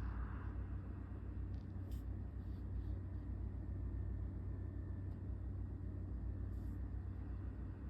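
Steady low hum under faint background hiss, with a few faint clicks.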